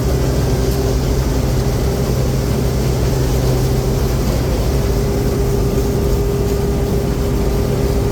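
Combine harvester running steadily while its unloading auger empties the grain tank, a constant engine hum with a steady whine over it.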